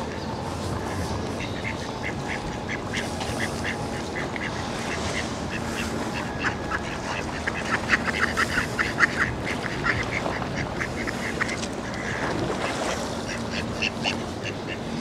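Mallard ducks quacking in quick repeated series. The calls are loudest and come fastest a little past halfway, and a few more follow near the end.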